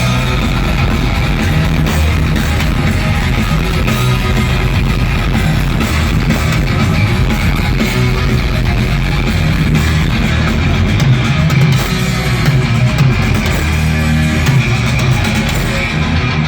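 A heavy metal band playing, with electric guitars and a drum kit.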